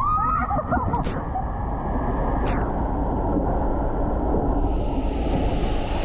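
Raft rushing through the AquaDuck water coaster's tube: a steady, dense rumble of flowing water and the raft sliding along the flume, with a rider's brief shout in the first second. About four and a half seconds in, a brighter hiss joins the rumble.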